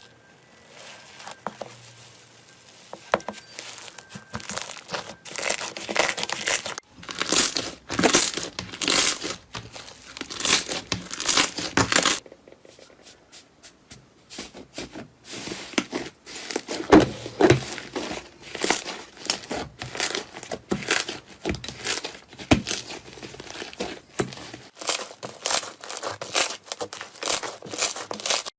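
Slime being squeezed and worked by hand, giving rapid crackling and popping. It comes in two stretches, the first cutting off abruptly about twelve seconds in, with a quieter spell before the second.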